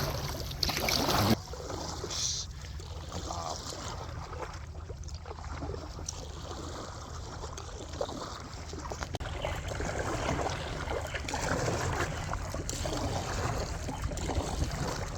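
A small boat under way: its engine runs steadily, with water rushing past the hull and wind noise. A louder rush in the first second stops suddenly.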